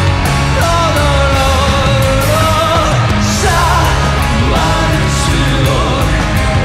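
Live rock band playing: drums keep a steady beat on the cymbals under heavy bass and guitars, with a long held melody line that wavers in pitch.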